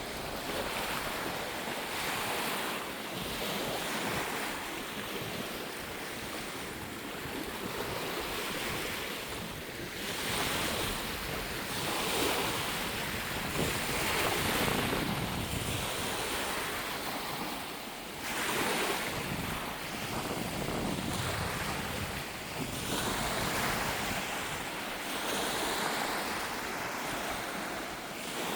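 Sea waves washing in, the noise of the water swelling and easing every few seconds, with wind buffeting the microphone.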